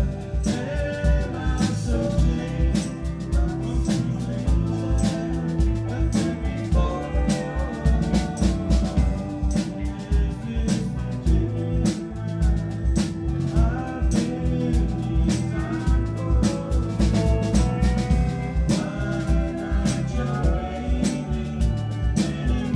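Live country-rock band playing a song: electric guitars and a drum kit keeping a steady beat.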